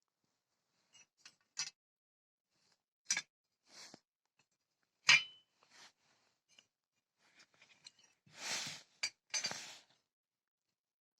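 Metal parts clinking and knocking as they are handled, with scattered sharp clicks. The loudest knock comes about five seconds in and rings briefly. Near the end there is a short scrape or rustle.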